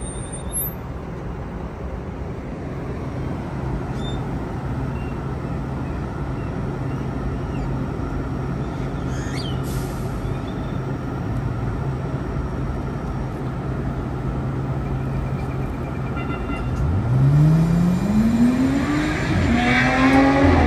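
Electric light rail train standing at the platform with a steady low hum, then pulling away near the end, its traction motors giving a whine that climbs in pitch as it picks up speed.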